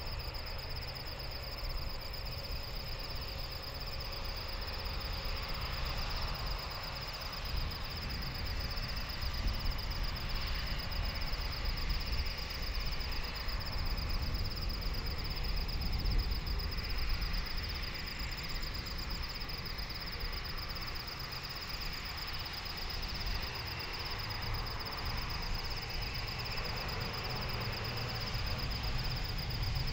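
Airbus A330neo's Rolls-Royce Trent 7000 engines at taxi power: a low, steady rumble with a rushing hiss that swells and eases a little. Crickets trill steadily at a high pitch over it.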